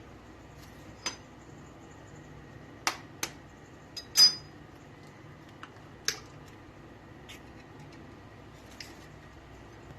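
Kitchenware knocking and clinking: a handful of separate sharp taps. The loudest comes about four seconds in and has a brief ring.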